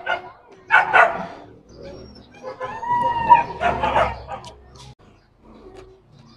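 A dog barking: a short burst about a second in, then a longer run of barks and yips with wavering pitch from about two and a half to four seconds.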